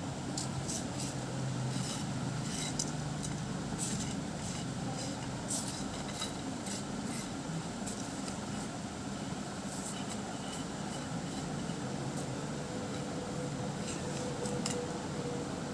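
Steady low background hum with scattered light clicks and ticks, as of small things being handled.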